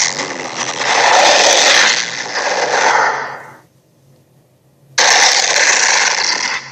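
Dragon sound effects: a long, harsh, raspy cry that fades out about three and a half seconds in, then after a short pause a second one that starts abruptly and cuts off near the end.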